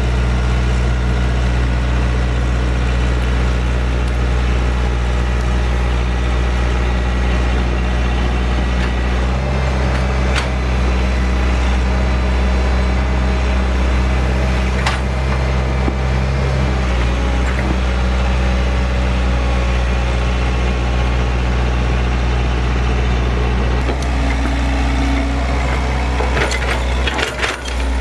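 Excavator diesel engine running steadily, its note shifting a few times as it works. Near the end there are several sharp cracks like wood snapping.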